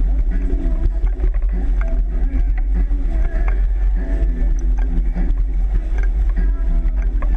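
Wind rumble on the microphone and water rushing along the hull of an O'Day 25 sailboat sailing fast and heeled over.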